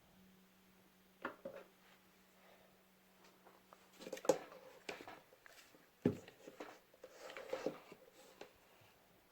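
Faint, scattered taps, clicks and rustles of craft materials being handled on a tabletop, with a low steady hum that stops about four seconds in.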